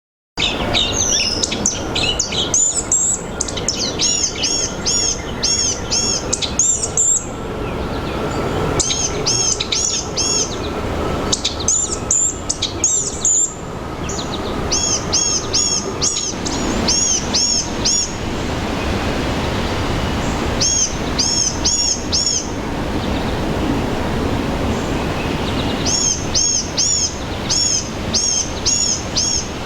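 Blue-gray gnatcatcher calling: runs of about four to eight quick, thin, high arched notes, each run repeated after a gap of a second or more, over steady background noise.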